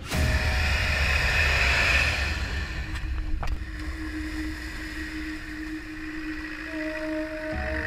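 Land Rover off-roader's engine running under load with water splashing as it drives through a wet crossing, loudest in the first three seconds and settling to a steadier drone. Music tones come in near the end.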